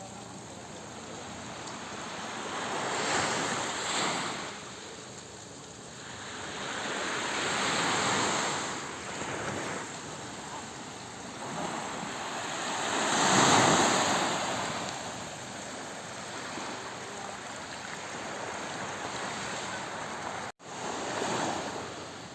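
Ocean surf: waves breaking and washing up the shore, the rushing noise swelling and fading every few seconds, loudest about halfway through. The sound cuts out for an instant near the end.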